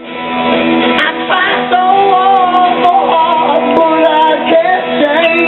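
Music with guitar: steady held notes under a wavering melody line.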